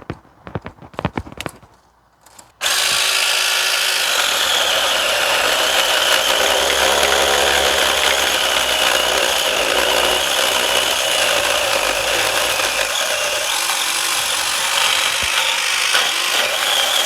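A power saw starts abruptly a couple of seconds in and cuts steadily through a low citrus branch with an even, unbroken noise, after a few light clicks of handling.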